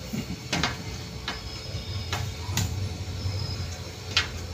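Aluminium camera tripod being set up: about six irregular sharp clicks and knocks as its quick lever leg locks are snapped shut and the telescoping legs handled.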